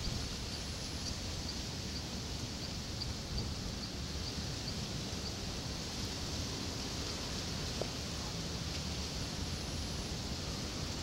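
Steady outdoor ambience: a high hiss over a low wind rumble. A small creature gives an even series of short, high chirps, about two or three a second, through the first half.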